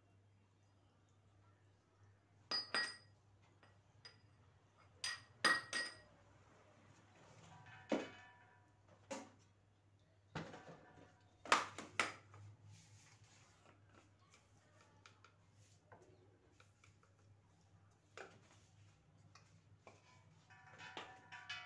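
Steel kitchen tins and utensils clinking as they are handled: scattered sharp metallic clinks in irregular groups, some ringing briefly, with a cluster near the end, over a faint steady low hum.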